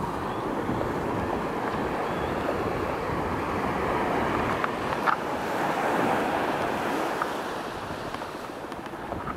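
Small waves breaking and washing up a sandy beach, a steady surf hiss that swells about halfway through and eases toward the end.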